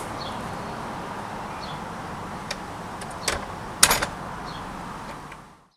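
A wooden door being shut, with one sharp knock a little before four seconds in and a few lighter clicks around it, over a steady background hiss that fades out at the end.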